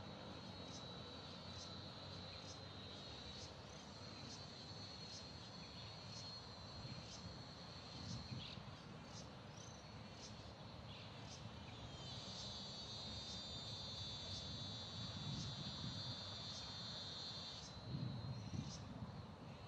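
Insects singing: a steady high trill with short higher chirps repeating about once a second, joined about two-thirds in by a louder, fuller high buzz that stops shortly before the end. Low rumbles come in briefly near the end.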